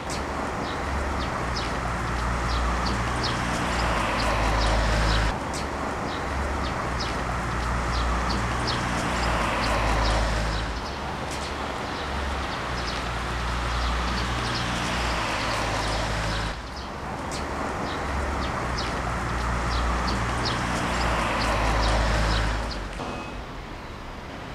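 Outdoor city ambience: a steady traffic hum with many short, high chirps. It breaks off and changes abruptly every five or six seconds.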